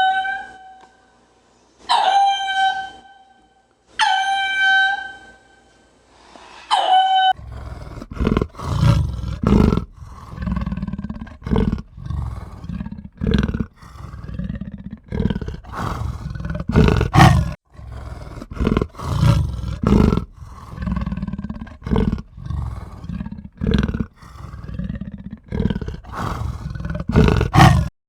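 Four clear, ringing high-pitched calls about two seconds apart, each fading out, then a large animal making a long series of rough, low calls every half second to a second.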